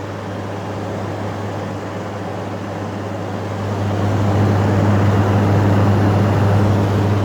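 LG 8,000 BTU air conditioner running: steady fan rush over a low hum, getting louder about four seconds in. No rattle is heard; a bang on the unit had just stopped it rattling.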